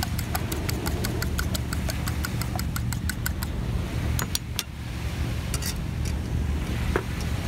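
A fork beating eggs in a plastic bowl, clicking against the bowl about six times a second, stops about three and a half seconds in; a few single clicks follow. A steady low rumble runs underneath.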